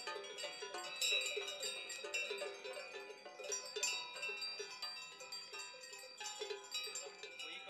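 Metal bells on a herd of Camargue cattle clanking irregularly as the animals walk, several bells overlapping with a few strikes a second.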